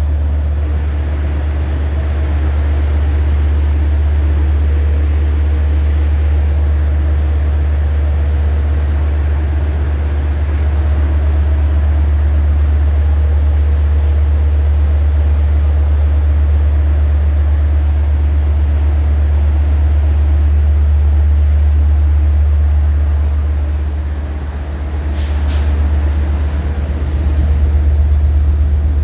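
Long Island Rail Road diesel locomotive engine running with a loud, steady, deep drone and a faint high whine. Its loudness dips briefly about 24 seconds in, and two short sharp clicks follow.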